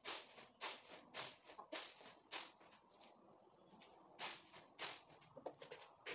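Maize kernels tossed and shaken on a woven winnowing tray: a rhythmic swishing rattle about every half second, with a short pause past the middle. A faint animal call about five seconds in.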